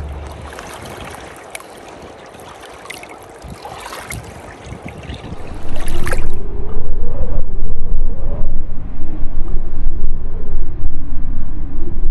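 Shallow river water running over stones for about six seconds, an even hiss with a few small splashy ticks. About six seconds in, loud gusting wind buffeting the microphone takes over.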